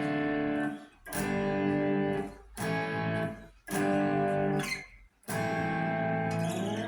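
Electric guitar playing five chords in turn, each struck and left to ring for about a second with short breaks between: D minor, G, A, G, A.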